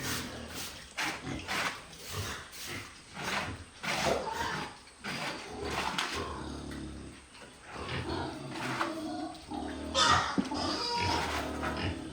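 Pigs grunting and squealing in a pen, with short rough calls throughout and a louder squeal about ten seconds in.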